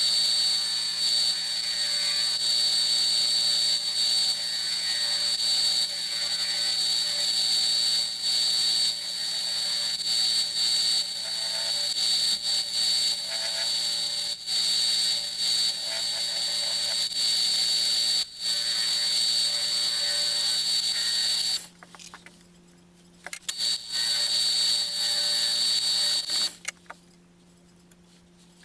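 Lathe running with a steady high whine and hum while a cutting tool turns a wooden earring blank. The machine goes quiet twice near the end, briefly and then for the last two seconds.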